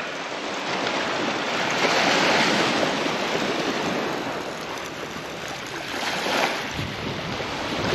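Surf washing onto a sandy beach, a steady rushing that swells twice and eases, with some wind.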